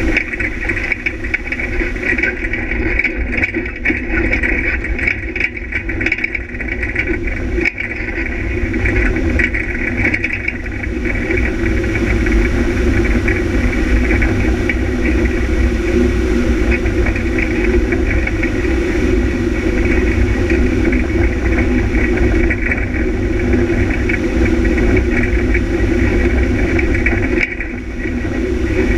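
Onboard sound of a rally vehicle's engine running steadily under way, with a constant low rumble from the tyres on the gravel track. The sound grows a little louder after the first third.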